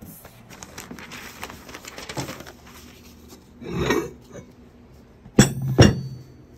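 Metal clinking and light clicks as a metal mold frame and parts are handled on a workbench, a brief scraping sound about four seconds in, then two sharp, ringing metal clanks about half a second apart near the end.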